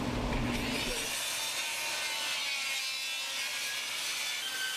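Electric circular saw cutting through a sheet of OSB: a steady high motor whine with the blade rasping through the wood.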